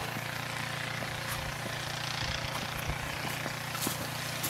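Snow shovel blade pushed steadily along through snow, a continuous scraping hiss, with a couple of faint crunches.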